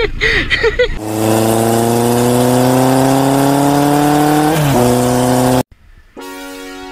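Motorcycle engine revving up in a sound effect: its pitch climbs steadily for about three and a half seconds, dips and wobbles briefly, holds, then cuts off suddenly.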